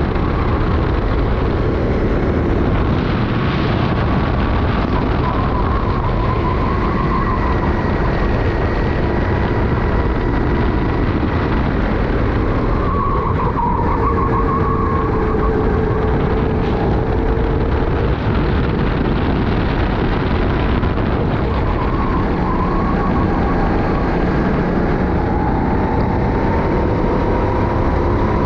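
Racing kart engine heard onboard at speed, its pitch rising and falling as the throttle is worked through the corners, over a constant loud rush of road and wind noise.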